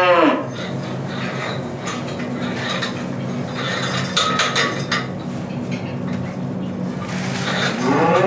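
Cow mooing: one long moo ends just after the start and another begins near the end. In between come a few light metallic clinks and knocks over a steady low hum.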